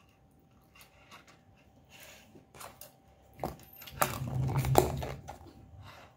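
Quiet eating at a table: light clicks of chopsticks against a ceramic bowl and soft slurping and chewing. About four seconds in comes a louder stretch of rustling and bumping near the microphone, with a sharp knock just before five seconds.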